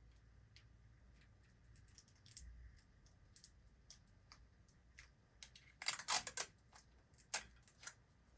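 Hands working wires and electrical tape: scattered small clicks and ticks, then a short crackling rasp about six seconds in and another sharp one about a second later.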